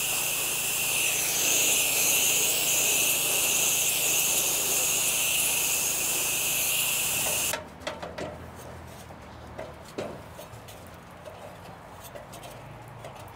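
Pressure washer wand spraying a steady hiss, with the pressure washer's engine humming underneath. About seven and a half seconds in the spray cuts off abruptly, leaving the quieter engine hum and a few light clicks.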